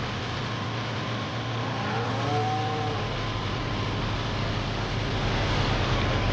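Steady running of a farm vehicle or machine engine with a constant low hum and heavy mechanical noise, and a brief higher tone that bends up and down about two seconds in.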